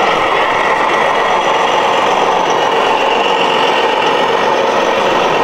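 Radio-controlled model vehicles running, a steady mechanical whirring with a constant hum and no breaks.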